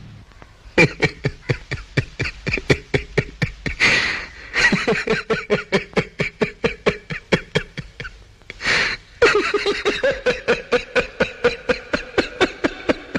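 A man laughing hard in a long run of rapid 'ha-ha' pulses, about five a second, broken twice by a gasping breath in, about four seconds in and again near nine seconds.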